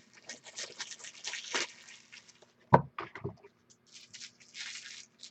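Card packaging and cards being handled at close range: light scraping and rustling with small clicks, a sharp click a little under 3 seconds in, and a burst of rustling about 4 seconds in.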